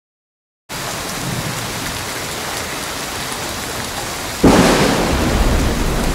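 Steady rain begins about a second in. About four and a half seconds in, a sudden loud clap of thunder breaks in and rumbles on over the rain.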